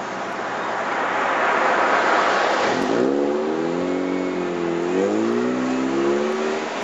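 A car drives past close by: tyre and road noise swells to a peak and falls away, then an engine note climbs and wavers as the car pulls away and accelerates.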